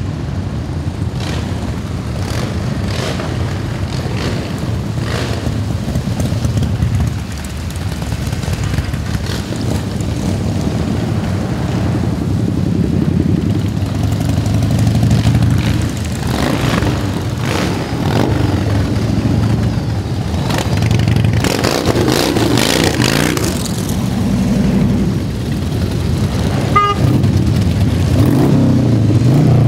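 A procession of Harley-Davidson motorcycles riding past one after another, their V-twin engines running and swelling louder as each bike goes by. A short beep sounds near the end.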